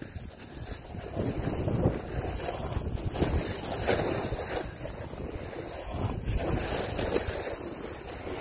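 Wind buffeting the microphone over the continuous rushing scrape of a ride down spring snow, rising and falling as the turns go.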